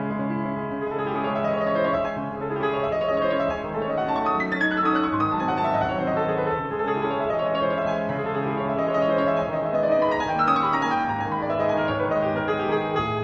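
Fazioli grand piano played solo, a classical piece in a dense flow of notes, with a descending run about four seconds in and another about ten seconds in.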